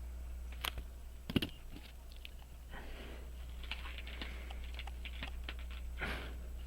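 Small metal hand tools clicking and scraping on a pocket watch movement as it is pried and unscrewed: two sharp clicks in the first second and a half, then a run of light scratching with small ticks.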